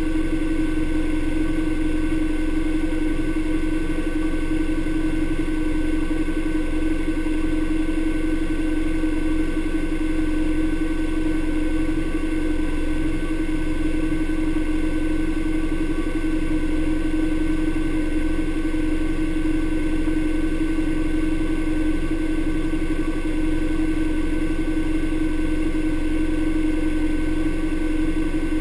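Honda Pioneer 1000 side-by-side engine idling steadily with the vehicle at a standstill.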